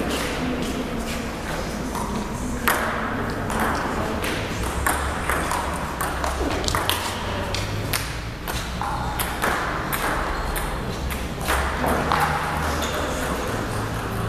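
Table tennis balls clicking sharply off paddles and tables, many irregular taps spread through, echoing in a large sports hall, with faint voices in the background.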